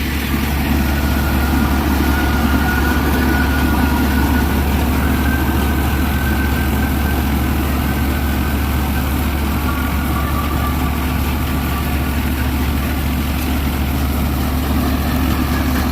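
Swaraj 963 tractor's 65 HP engine running steadily under load while driving a tractor-mounted Gill 588 double-rotor combine harvester cutting and threshing wheat. A steady mechanical drone with a faint whine that shifts slightly in pitch.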